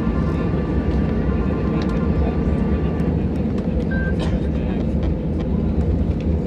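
Steady low rumble inside a Boeing 737 cabin after landing: the engines and airframe as the jet rolls along the ground, with a faint whine that stops about halfway through.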